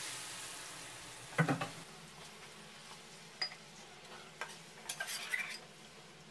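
Water poured into a hot steel kadai of fried onion-and-spice paste sizzles, the hiss fading over the first second or two as it settles. A steel spatula then stirs and scrapes the gravy, knocking against the pan a few times, loudest about a second and a half in and again in a cluster near the end.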